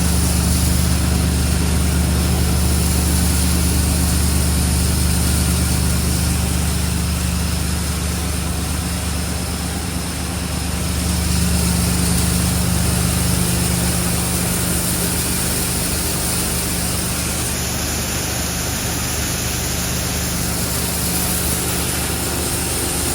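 FRS BK 60 cable granulation plant running steadily, a loud machine hum with a strong low drone. The level dips briefly about ten seconds in, then settles slightly lower.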